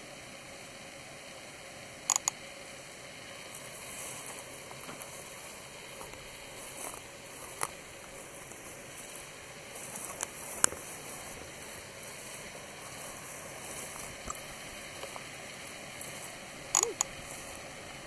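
Handling noise from a handheld camera being carried along a path: a faint steady hiss with scattered light rustles and a few sharp clicks, two of them close together about two seconds in and again near the end.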